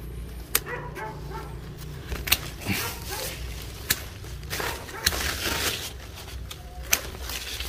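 Hand pruning shears snipping custard apple branches: about five sharp snips, a second or two apart, with leaves and twigs rustling in between.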